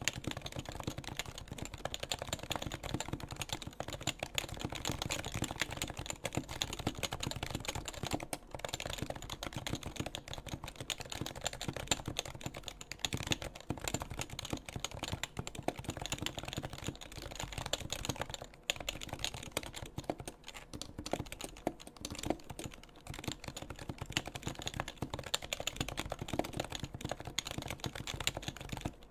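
Steady, fast typing on a stock HHKB Pro2, its Topre electrostatic capacitive keys clacking continuously with only brief pauses.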